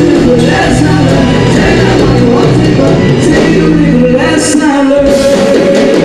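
Live band performing with singing, loud and continuous.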